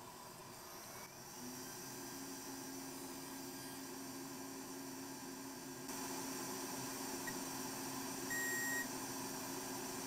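Faint steady electrical hum from the bench, with one short, high electronic beep about eight seconds in.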